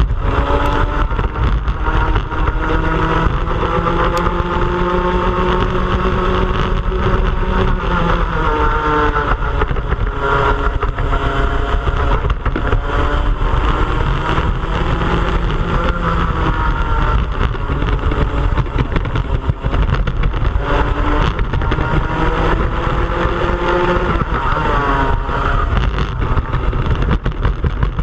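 Onboard sound of a two-stroke racing kart engine at race pace, its pitch rising on the straights and falling away into the corners, again and again.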